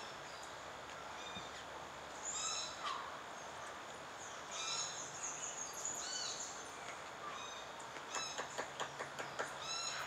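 Several short bird calls, each a quick rising-and-falling note, over a faint forest background. About eight seconds in comes a quick run of sharp taps: a lineated woodpecker pecking at a Cecropia trunk to get at ants.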